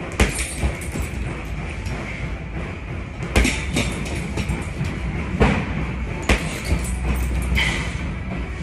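Boxing-gloved punches landing on a hanging leather heavy bag, about eight irregular hits, some in quick pairs.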